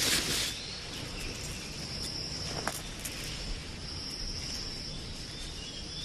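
Insects chirring steadily in the background in a high, even drone. A brief rustle comes at the start and a single faint click near the middle.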